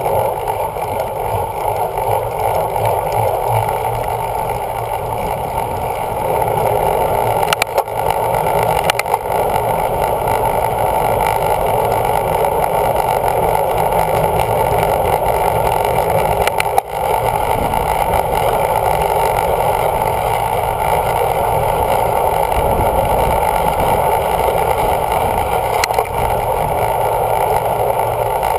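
Steady wind rushing over a bicycle-mounted action camera's microphone as the bike rolls along at racing speed in a group, a little louder from about six seconds in as the speed picks up. A few short clicks break through.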